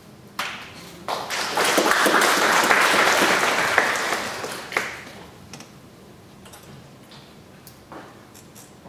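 Audience applauding: the clapping builds about a second in, peaks, and dies away by about five seconds, followed by a few faint knocks.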